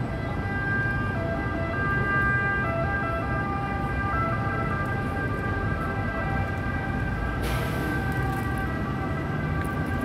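Background music of held, slowly changing notes over a steady rumble of city traffic and buses. A burst of hiss comes in about two-thirds of the way through.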